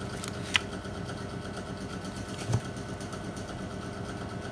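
A steady mechanical hum in the background. About half a second in there is a sharp click, and about two seconds later a softer knock, as the Nokia C6's slide-out QWERTY keyboard is handled and pushed open.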